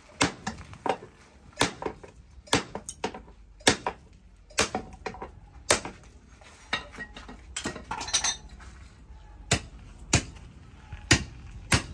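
Hand forging a red-hot steel bar into a crowbar: sharp metallic clanks of a hammer and the bar itself striking a steel anvil post, at irregular intervals of roughly one or two a second, some ringing briefly.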